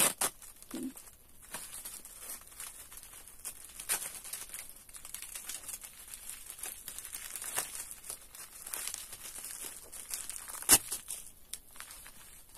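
Thin plastic wrapper of an individually wrapped Charm sanitary pad crinkling and tearing as it is unwrapped by hand, with a run of sharp crackles, the loudest about eleven seconds in.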